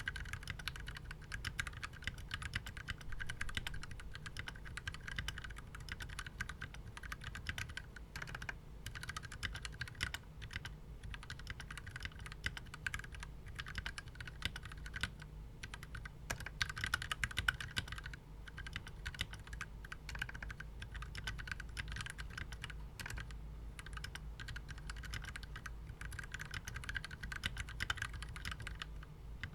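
Steady fast typing on a KBDfans Tofu mechanical keyboard with Gateron Yellow linear switches: a dense run of key clacks with a few short pauses.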